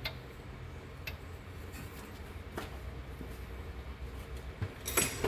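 A few faint metal clicks over a low steady hum, then a short cluster of louder clicks and clatter near the end, from hand work on an open V8 cylinder head with its valve train exposed.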